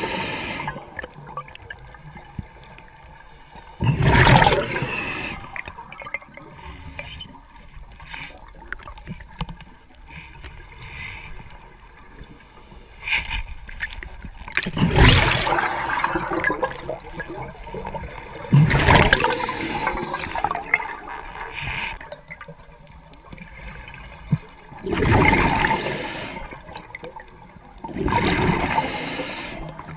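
A diver's exhaled breath bubbling out underwater, five loud rushes of bubbles a few seconds apart, with quieter water noise in between.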